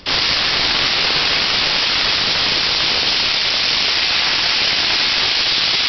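Cream sherry being poured into a hot sauté pan to deglaze it: a loud, steady hissing sizzle that starts suddenly as the liquid hits the butter, oil and chicken drippings and boils off in steam.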